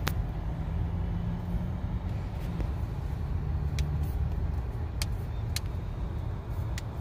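Steady low rumble of a car driving, heard from inside the cabin, with a few faint ticks at irregular intervals.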